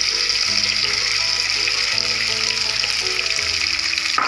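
Boiled potato cubes sizzling in hot oil with cumin seeds in a non-stick frying pan as they are tipped in from a glass bowl. Background music with held notes plays under the sizzle.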